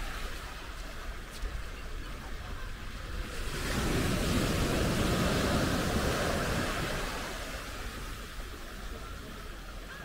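Small ocean wave breaking and washing up the sand. The surf swells up about three and a half seconds in, peaks, then fades away over the next few seconds.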